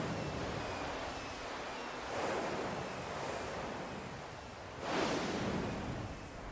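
Large ocean waves breaking on a beach: a steady rush of surf that swells into a fresh crash about two seconds in and again about five seconds in.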